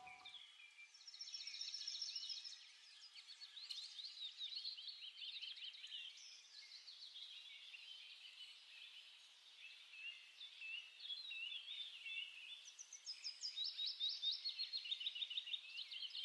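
Several small birds chirping and trilling, with many quick high notes overlapping; a louder run of rapid trills comes near the end.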